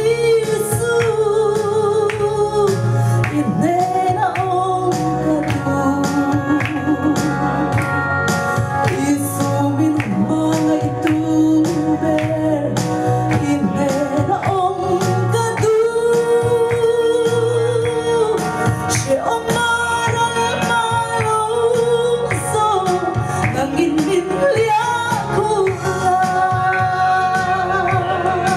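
A woman singing a Mizo gospel song into a microphone over a PA, with live instrumental accompaniment and a steady beat.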